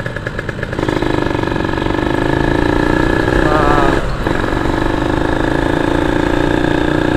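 Kawasaki Ninja 150 SS two-stroke single-cylinder engine riding off. It pulses at low revs, then pulls harder and louder about a second in, with a brief dip about four seconds in before it picks up again.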